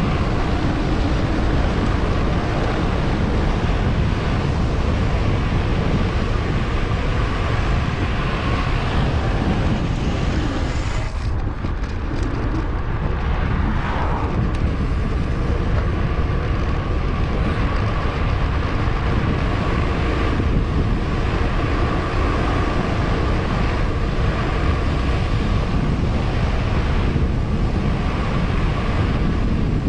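Wind rushing over a GoPro action camera's microphone while cycling, a steady loud rumble that eases briefly about eleven seconds in.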